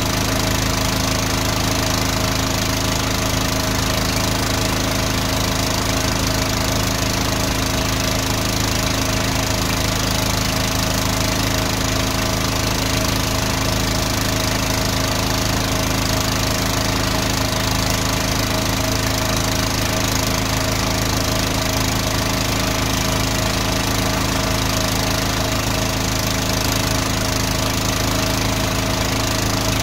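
Drain jetter's engine and high-pressure pump running steadily at constant speed while the hose jets water down a blocked drain.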